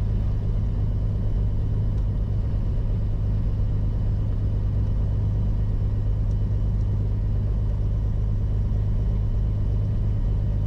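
Beechcraft Bonanza's piston engine running at taxi power, heard from inside the cockpit as a steady low drone.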